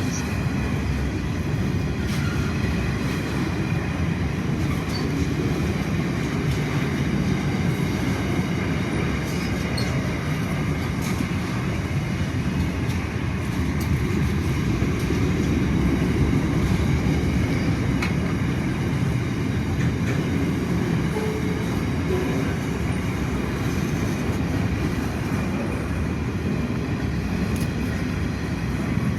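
Freight train wagons rolling past in a steady, continuous rumble of wheels on rail, with a faint high wheel squeal running through it.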